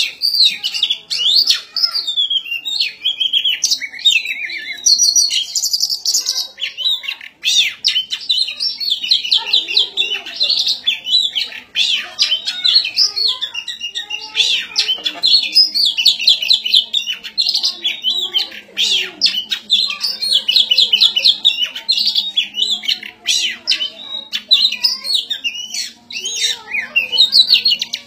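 Oriental magpie-robin (kacer) singing loudly and without pause in rapid, varied high phrases: the aggressive song it gives when displaying at a rival.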